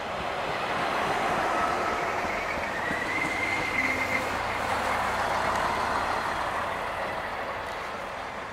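A DB Class 642 (Siemens Desiro) diesel multiple unit passes close by: engine and wheel-on-rail noise swell to a peak, then fade as it draws away. A high whine stands out about three to four seconds in.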